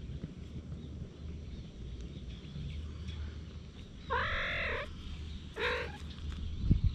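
A cat meowing twice: a drawn-out rising-and-falling meow about four seconds in, then a shorter, rougher one a second later, over a low steady rumble.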